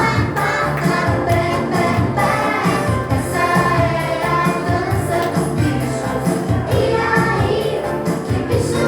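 Recorded song with singing over instrumental backing and a steady beat.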